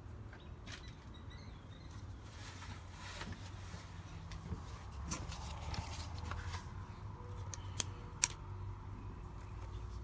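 Faint handling noise from a Ring Video Doorbell Pro being held and moved by hand, with scattered small clicks and two sharp clicks close together about eight seconds in, over a low steady rumble.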